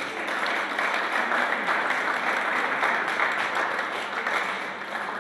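Audience applauding, a dense steady clapping that tapers off near the end.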